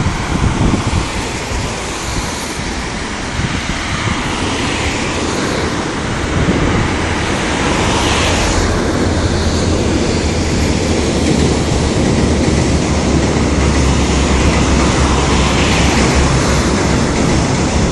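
Gusty storm wind blowing over an open bridge, with a deep rumble of passing vehicles that grows louder about six seconds in and holds for several seconds.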